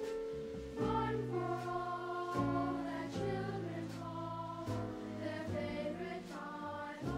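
Background music: a choir singing slow, held chords that change about once a second.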